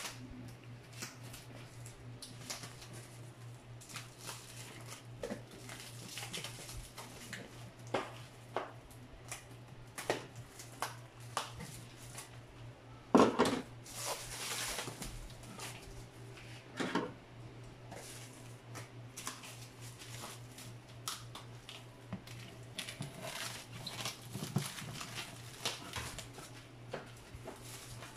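Plastic stretch wrap on a cardboard box being cut with scissors and pulled by hand: irregular crinkling, snipping and rustling, with a louder crackle about halfway through. A steady low hum sits underneath.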